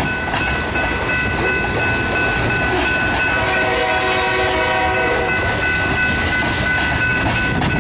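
Freight train of tank cars rolling past a grade crossing, with wheels rumbling and clattering on the rails. Several steady high-pitched tones sound over it throughout, and a lower pitched tone comes and goes about halfway through.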